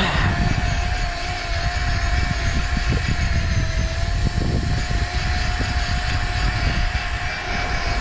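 Electric fishing reel winding in line from depth: one steady, slightly wavering whine over a low rumble, as a hooked cod is brought up.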